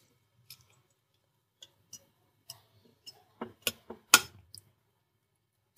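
Light, irregular clicks and taps of a metal palette knife on a glass dish as chopped almonds and pistachios are pressed into a tray of barfi, the strongest a little past the middle.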